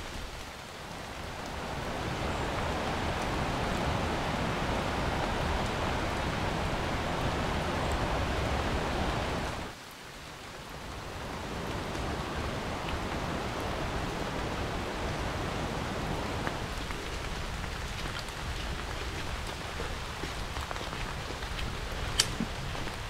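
Steady rushing of water, an even hiss with no pitch, swelling in over the first couple of seconds, cutting out abruptly about ten seconds in, then building back up and holding steady.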